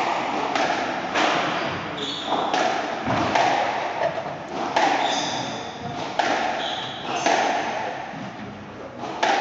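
Squash rally: sharp, echoing knocks of racket on ball and ball on the court walls, about one a second. Short high squeaks from the players' shoes on the wooden floor come in between.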